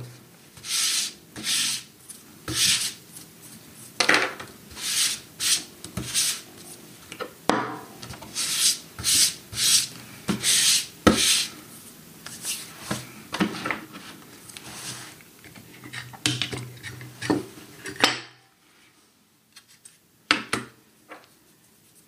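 Small plastic and metal parts and tools being handled and set down on a desk mat: irregular short rubbing and clattering sounds over a low hum. Both stop about 18 seconds in, leaving a few faint clicks.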